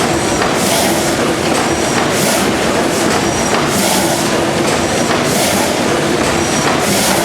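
A 1917 Snow twin tandem, double-acting natural gas engine of 600 horsepower running slowly and steadily. A rhythmic hiss recurs about every second and a half, with a short high squeak between the hisses.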